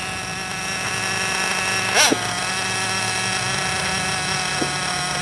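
HSP Bazooka radio-controlled buggy's small engine running with a steady buzz, giving one brief rev up and back down about two seconds in.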